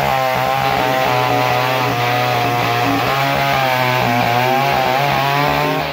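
A McCulloch two-stroke chainsaw running under load as it cuts through a log, its engine pitch wavering up and down in the cut.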